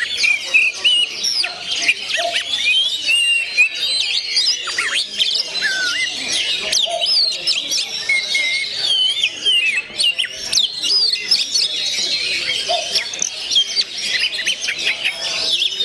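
Oriental magpie-robin (kacer) singing a fast, unbroken run of varied whistles and chattering chirps.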